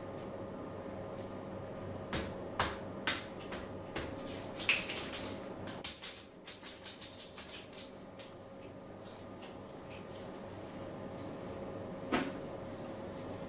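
A run of sharp clicks and knocks, then a quicker series of light taps at about five a second, and one more knock near the end, over a steady faint hum.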